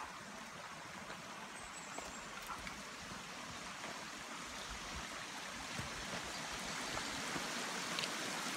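Steady rushing noise that slowly grows louder, with a few faint clicks.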